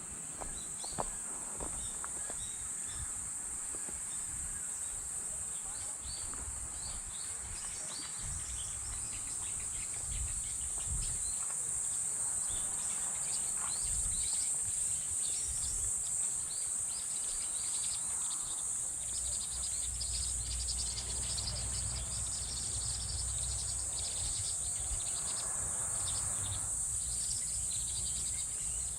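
Insects trilling in a steady, high-pitched outdoor chorus, with short bird chirps over it and a low rumble in the second half.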